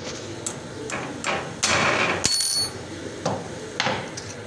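Metal hand tools clinking and knocking on the embroidery machine's back shaft and frame during work on the shaft bearing. Several sharp knocks, a louder clattering rattle about one and a half seconds in, then a brief ringing metallic ping, followed by a few more taps.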